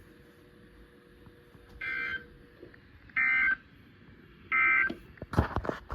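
NOAA Weather Radio end-of-message tones: three identical short digital data bursts, each about half a second long and about 1.3 s apart, marking the end of the weekly test broadcast. Faint radio hiss lies between the bursts, and a sharp click or knock comes near the end.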